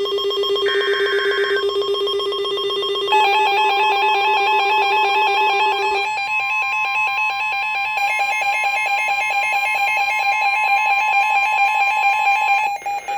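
Emergency Alert System tones opening a new warning. About a second in comes one short screeching data burst of the alert header. About three seconds in the steady two-tone attention signal starts, and it cuts off shortly before the end. A rapidly pulsing lower tone runs underneath until about six seconds in.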